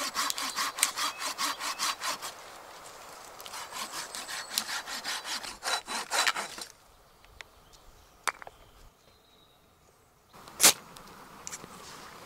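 Hand saw cutting through a birch log with quick, even back-and-forth strokes, pausing briefly and then starting again, and stopping about two-thirds of the way through. After that it is much quieter, with a few small clicks and one sharp knock near the end.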